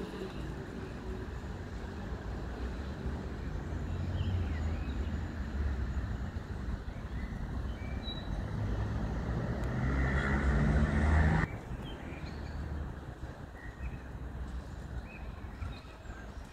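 Street traffic noise: a low rumble building as a vehicle passes, with an engine hum near its loudest about eleven seconds in, then cutting off suddenly. A few faint bird chirps over it.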